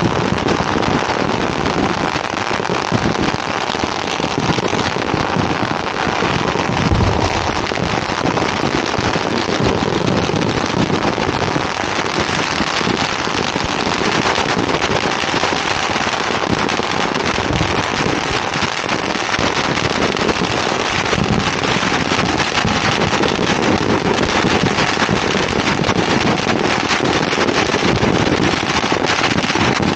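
Dense, continuous crackle of many firecrackers going off at once, with a few deeper booms, the loudest about seven seconds in.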